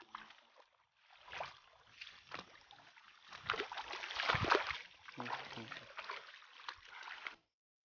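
People wading barefoot through shallow river water, with irregular splashing and sloshing as their feet move through it.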